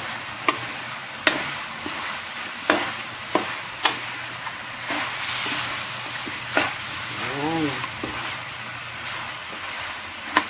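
Chicken pieces sizzling in a hot metal wok while being stirred, with a utensil knocking sharply against the pan a few times. The chicken is browning in its own fat and juices.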